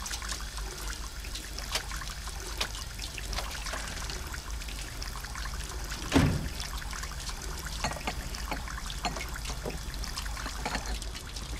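Water running from a kitchen tap into the sink, with scattered light clicks and a louder clunk about six seconds in.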